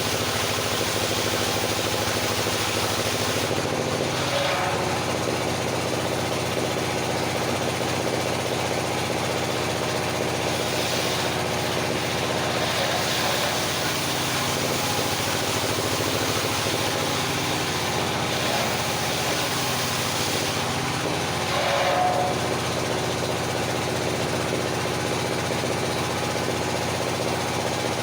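Engine of a circular sawmill running steadily, with a brief change in its note about 4 seconds in and again near the end.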